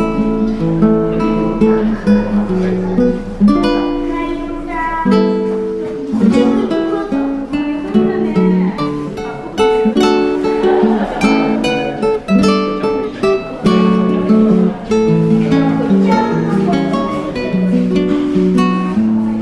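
Background music: acoustic guitar playing a steady run of plucked notes and strummed chords.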